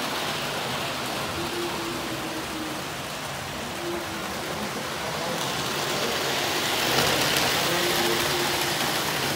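Model train running on tinplate track, a steady rumbling hiss that grows brighter and a little louder about halfway through as the train comes nearer.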